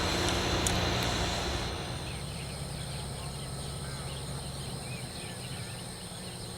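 Low rumble and hiss of rail grinding machinery for about the first second and a half, then an abrupt drop to the night ambience: a steady high insect trill with scattered short chirps over a faint low hum.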